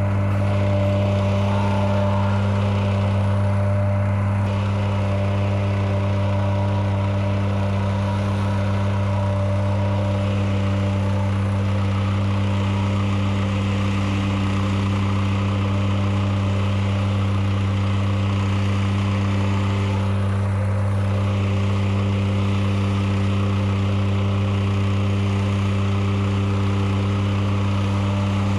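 Gas-engine plate compactor running steadily as it compacts gravel, a constant engine-and-vibration drone.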